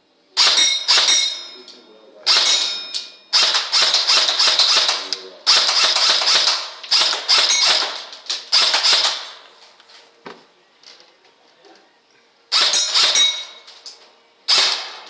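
Airsoft gun firing a string of single shots, at times two or three a second. Each shot is a sharp crack with a short ringing tail. There is a pause of about two seconds after the middle before a few more shots.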